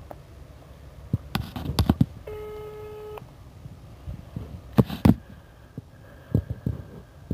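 Sounds of a telephone call being connected: scattered clicks and knocks of handling, and one electronic telephone tone lasting about a second early on, a ring tone or beep on the line.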